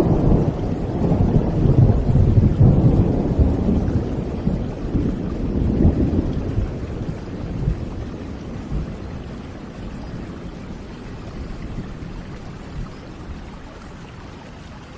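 Thunder rumbling over steady rain. The deep roll is loudest in the first few seconds, swells once more about six seconds in, then slowly dies away, leaving the rain hiss.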